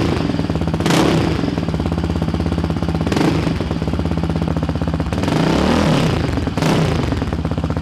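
2014 Yamaha Raptor 700's single-cylinder engine running through a Big Gun Evo R dual exhaust, idling with a few short throttle blips.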